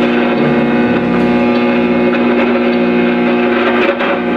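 Distorted electric guitar held on a loud, steady droning note through the amplifier, ringing out without a beat.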